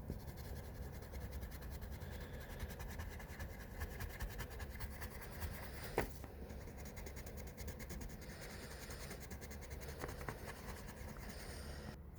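A drawing tool scratching across paper in quick, continuous strokes, with one sharp click about six seconds in.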